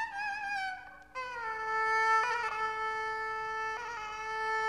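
Instrumental interlude music: a slow melody of long held notes on a single melodic instrument, with vibrato on the first note and a short break about a second in.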